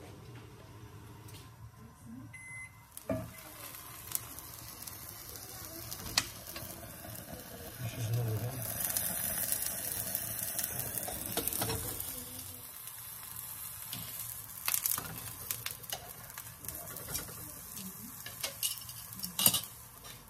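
Eggplant slices frying in hot oil in a nonstick frying pan, sizzling loudest from about 8 to 12 seconds in. Occasional sharp knocks and clinks of cookware and utensils come through.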